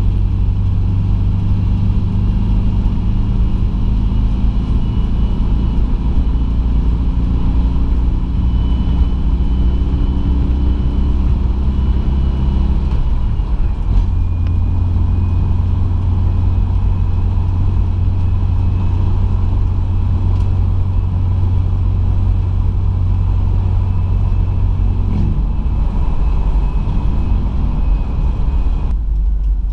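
A 1973 Volkswagen T2 bus's stock 1600cc air-cooled flat-four engine, fitted with a Weber 32/36 carburettor, running under way and heard from inside the cab along with road noise. Its note shifts about halfway through and again near the end.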